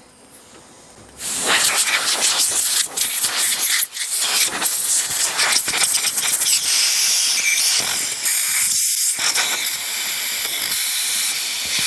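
Compressed air hissing from an air blow gun as it blows off a cleaned riding-mower carburetor during a rebuild. One long blast starts about a second in and flutters briefly now and then.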